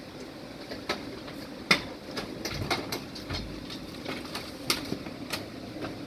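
Scattered knocks and clunks as a stripped-down direct-drive washer, tub and motor, is tipped over onto a metal hand truck, with a low rumble about halfway through as it settles.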